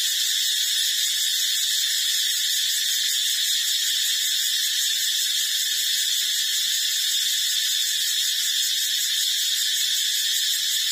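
A steady, high-pitched hiss with a few fixed whining tones in it, holding at the same level throughout.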